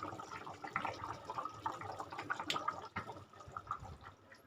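Faint, irregular dripping and small liquid clicks, many short ticks in no steady rhythm, fading a little near the end.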